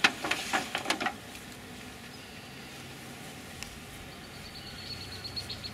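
A few short, sharp handling sounds in the first second, then the faint, steady buzz of honey bees around the open top bars of a top-bar hive.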